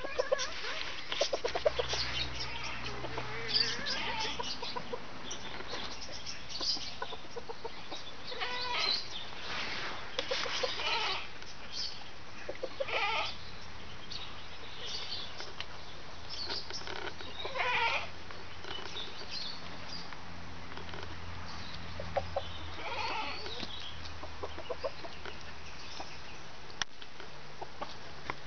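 Domestic hens clucking and calling now and then, with short calls scattered through and a few longer drawn-out ones, over a low steady hum.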